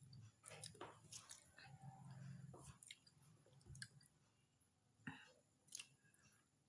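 Faint, wet chewing and mouth clicks of a person eating a raw lemon, a handful of short smacks scattered among near silence.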